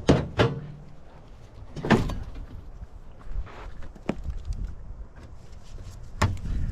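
A few separate knocks and clanks of scrap metal being handled, the first with a short ring.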